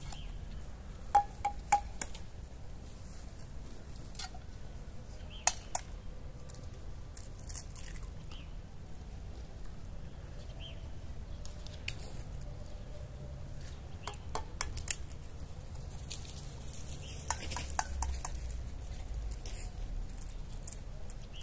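Occasional light clinks and taps of metal camp cups and utensils, a few of them with a brief metallic ring, over a low steady background rumble.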